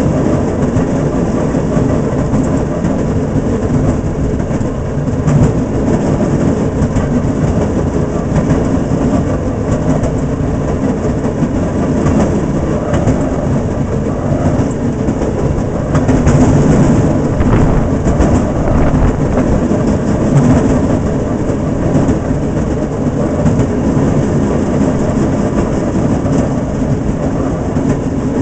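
Fairmont speeder car travelling along the rails, heard from inside its cab: a steady, loud running noise of the motor and wheels, with short clicks over the track, getting somewhat louder about sixteen seconds in.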